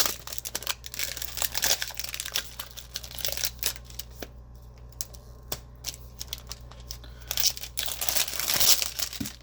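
Thin plastic wrap on an eyeshadow palette crinkling and tearing as it is picked and peeled off by hand, in irregular crackles that grow busier near the end.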